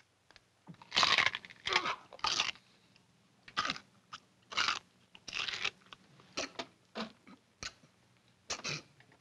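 Clam shells being bitten and chewed: a dozen or so separate hard crunches at uneven intervals, the loudest in the first couple of seconds.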